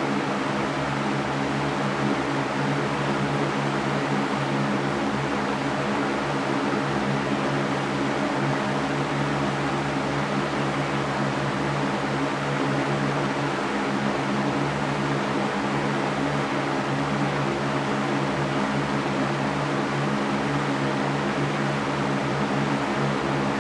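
Electric fan running steadily: an even whoosh of moving air over a low motor hum.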